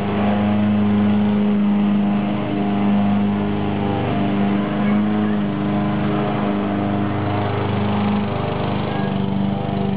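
Small petrol engine of a lawnmower running steadily at constant speed, a humming drone with even overtones that wavers slightly in level.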